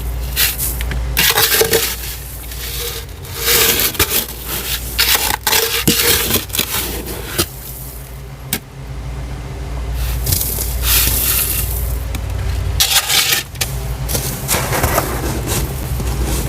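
Frost being scraped off the inside walls of a deep freezer: a run of irregular scraping strokes, each a short rough burst, with a pause about halfway through, over a steady low hum.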